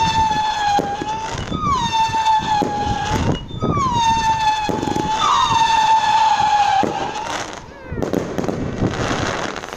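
Howling Wolves 30-shot firework cake firing whistling shots: loud, high, steady whistles that overlap, a new one dipping in pitch as it starts every second or two, with pops from the bursting shots. The whistling stops about three-quarters of the way through, leaving crackling and pops.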